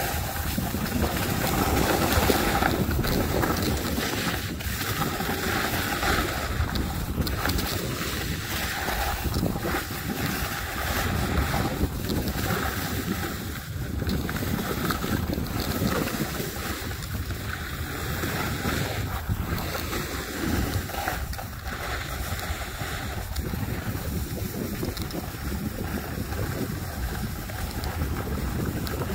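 Wind rushing over the microphone while skiing downhill, with the hiss and scrape of skis sliding on groomed snow; the rush swells and eases unevenly.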